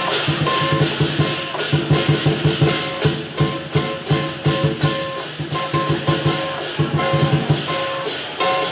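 Music with a fast, steady beat of drum strikes and short repeated notes.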